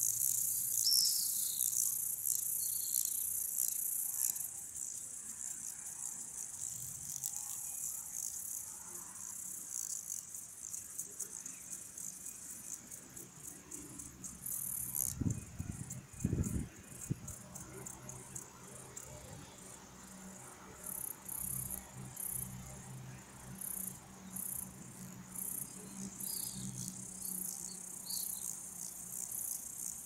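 Meadow insects chirping: a steady high-pitched trill that breaks into short repeated bursts in the second half, over a faint low hum. There are a couple of low thumps about fifteen seconds in.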